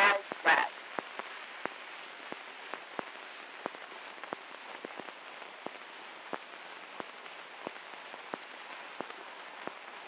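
Surface noise of an 1890 wax phonograph cylinder: a steady hiss with a faint click repeating about every two-thirds of a second. A woman's spoken words end in the first half second.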